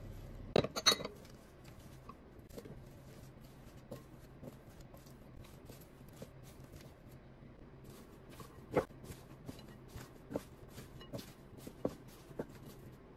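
Spatula knocking and clinking against a ceramic bowl while sliced onion, potato and spinach are tossed with spices. The sharpest knocks come in a quick cluster about a second in, followed by scattered light knocks and the rustle of the vegetables.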